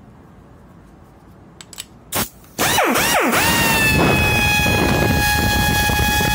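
GS-1011B pneumatic double-hammer impact screwdriver running free with no load. After a few light clicks, it spins up in three quick blips, then runs on steadily with a high whine over the hiss of its air.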